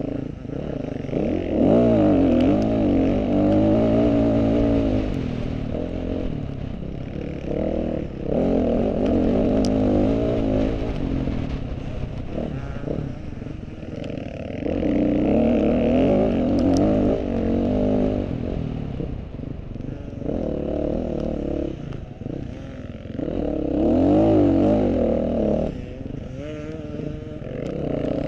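KTM off-road motorcycle engine revving hard in repeated surges, the pitch rising and falling as the throttle opens and closes, ridden through mud.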